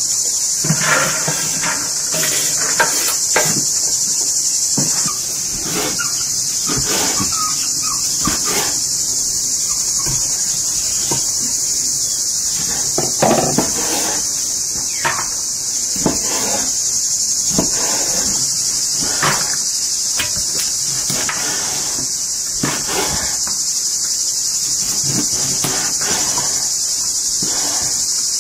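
Large kitchen knife chopping lamb heart and kidneys on a wooden cutting board: irregular sharp knocks every second or two, over a loud, steady, high-pitched chorus of insects.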